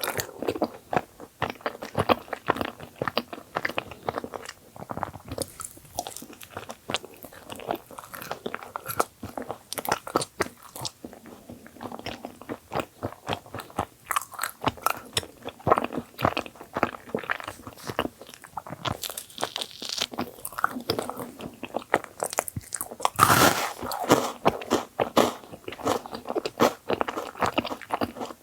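A person chewing and biting into thick filled sand bagels: a steady run of wet mouth clicks and soft crunching, with a louder crunch about 23 seconds in.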